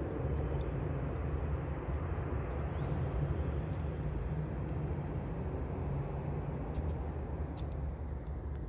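A campfire crackling, with a few sharp pops, over a steady low rumble. A bird gives a short call twice, about three seconds in and near the end.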